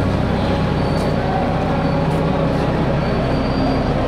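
The engine of a yellow rail work locomotive running steadily, a constant low hum with no change in pace.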